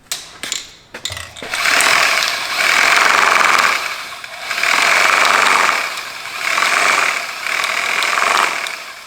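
Corded Sawzall reciprocating saw running a spray paint can back and forth in a homemade shaker housing, in about four bursts that swell and ease off as the trigger is worked. A few clicks and knocks come just before it starts.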